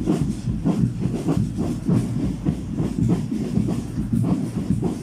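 Many marchers' shoes tramping on an asphalt road in a loose, steady rhythm of about four dull steps a second.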